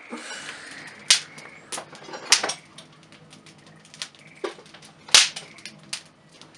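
A series of sharp, irregular clicks and knocks, about eight in all, the loudest about two and a half and five seconds in. A faint steady high tone sounds under them for the first second and a half.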